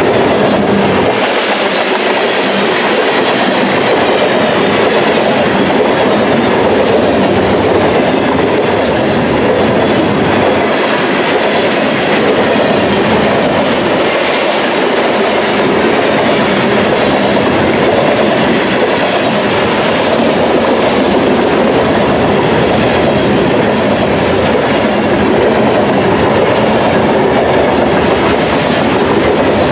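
Freight train cars rolling past on the track, a steady loud rail noise that runs on without a break.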